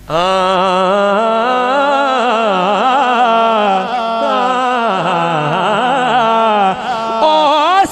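A man singing a naat solo into a microphone and PA: one long wordless phrase, held with the pitch wavering up and down. It starts suddenly and dips near the end.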